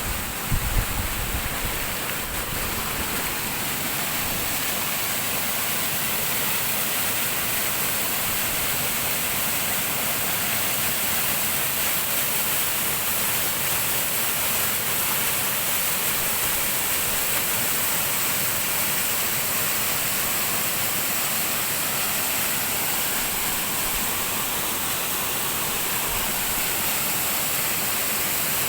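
Waterfall: steady rushing and splashing of falling water, with a few low thumps in the first second.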